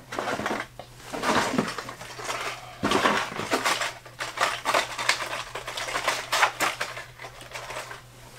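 Packaged fishing lures clattering and rustling as a handful is gathered by hand out of a cardboard box: a dense, uneven run of clicks and knocks.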